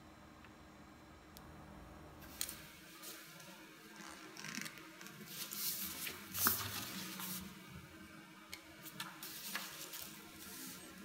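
Paper rustling and scraping as the pages of a small sketchbook are flipped and smoothed by hand, with a few sharp ticks among them. The first couple of seconds hold only faint room tone.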